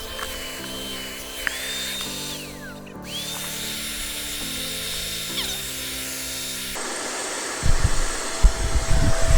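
Background music with a repeating chord pattern, over a high motor whine that holds steady and then winds down, twice. Near the end the music gives way to a rumbling noise with heavy thumps.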